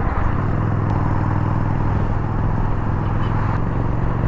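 Yamaha Bolt's air-cooled V-twin running steadily at cruising speed, its low engine note settling in about a third of a second in, under a rush of wind noise on the microphone.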